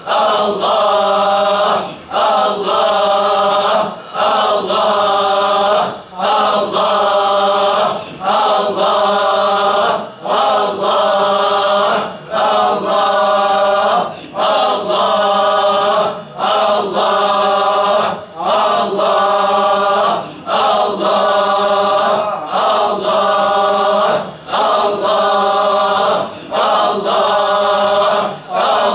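A group of men chanting the single divine name 'Allah' together in Sufi dhikr, one long call about every two seconds with a brief breath between, steady and unbroken.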